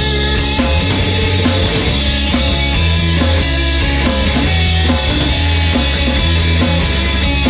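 Rock music: a band with guitar, over a low bass line that holds each note for about a second.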